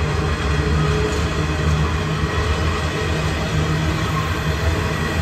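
Freight train of hopper wagons rolling past at steady speed: a continuous low rumble of steel wheels on rail.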